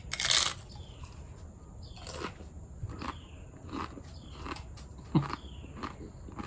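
A bite into a stack of two dry, brittle Paqui One Chip Challenge tortilla chips: one loud crunch at the start, then chewing with a crunch about every three quarters of a second.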